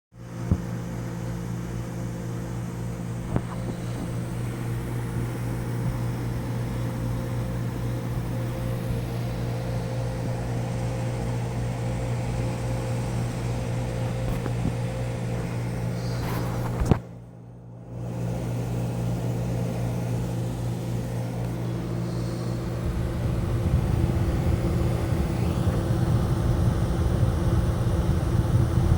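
Vintage Fedders 8,000 BTU Weather Wheel window air conditioner running: a steady compressor and fan-motor hum. It briefly drops out about seventeen seconds in, and a deeper rumble comes in near the end.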